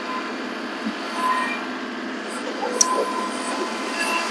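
Kubota compact tractor's diesel engine running steadily as it turns and pulls a grading scraper back along a gravel driveway, with one sharp click partway through.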